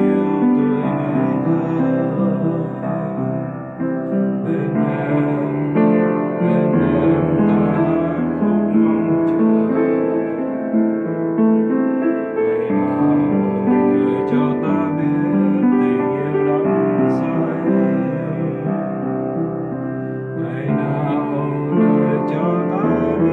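Piano played with both hands: chords and broken-chord figures over low bass notes that change every few seconds.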